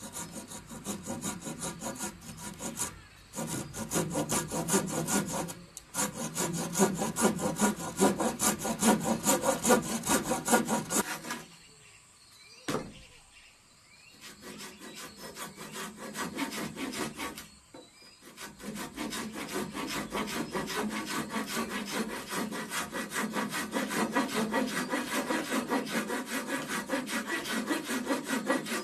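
Folding pruning saw cutting through a wooden beam by hand in quick, rhythmic back-and-forth strokes. The sawing stops briefly a few times and has a longer break around the middle, where there is one sharp click.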